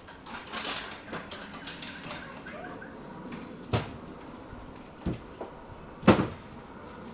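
Folding metal ironing board clattering and knocking as it is carried and handled: a run of small clicks and rattles in the first second or so, then a few separate sharp knocks, the loudest about six seconds in.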